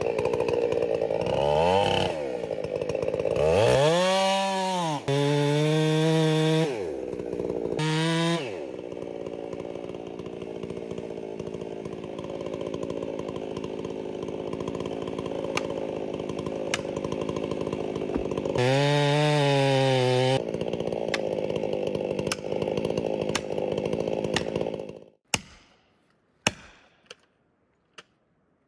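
Chainsaw revving up and down in bursts, then running steadily under load as it cuts into the base of a large standing tree, with another high rev partway through. It stops about 25 seconds in, followed by four sharp knocks of an axe striking at the cut, driving a felling wedge.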